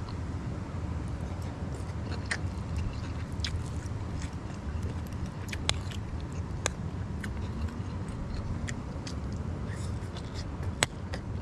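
Close-up chewing of a mouthful of rice and seafood, with sharp clicks and scrapes of a metal spoon and fork on the plate; the loudest click comes near the end. A steady low rumble lies under it all.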